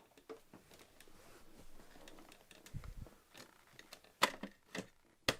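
Faint rustling and handling noise, then a few sharp, separate clicks from about four seconds in.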